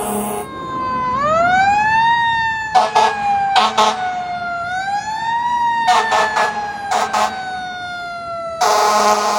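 Emergency vehicle siren wailing: the pitch rises quickly, then falls slowly, twice over. Several short, loud, harsh blasts break in on top, the last about a second long near the end.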